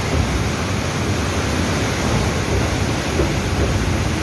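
Steady rushing noise of swollen floodwater churning around bridge piers, mixed with wind buffeting the microphone at the open train door.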